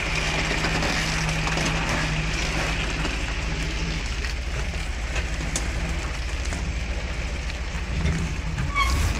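Engine of a heavy six-wheeled logging truck running at low speed as the loaded truck creeps down onto a steel ramp. It is a steady low rumble whose held note eases off about four seconds in.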